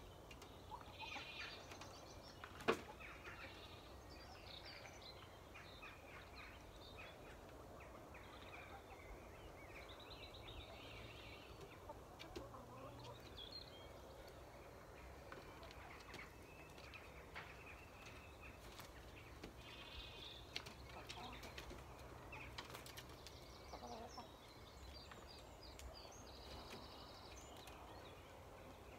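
Chickens clucking faintly and calling now and then as they settle to roost for the night, with a single sharp click a few seconds in.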